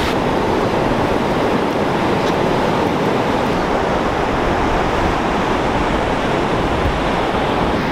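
Steady rush of breaking surf and wind, loud and unbroken.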